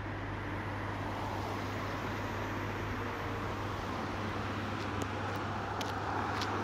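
Road traffic: cars driving past over the crossing, mostly the hiss of tyres on asphalt, growing a little louder toward the end. A few sharp ticks are heard near the end.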